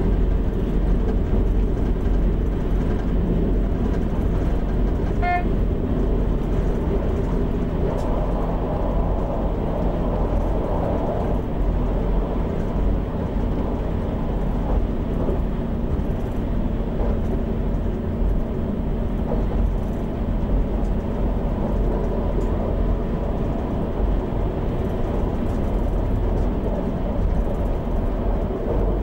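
DB Class 642 Desiro diesel multiple unit running along the line, heard from the driver's cab: a steady engine drone with rumbling wheel and rail noise. A short high beep sounds once about five seconds in.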